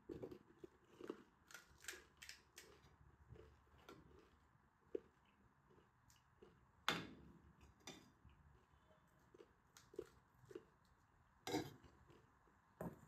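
Quiet eating and tableware sounds: chewing and crunching of pani puri, and a steel spoon clicking against a steel bowl and the crisp puri shells as potato filling is spooned in. Scattered sharp clicks, the loudest about seven seconds in and shortly before the end.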